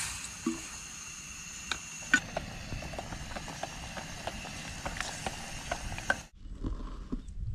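Wooden spatula stirring and knocking against a metal cooking pot, many small clicks and scrapes, over the steady hiss of a portable gas stove burner, with water poured into the pot at the very start. The hiss cuts off sharply about six seconds in.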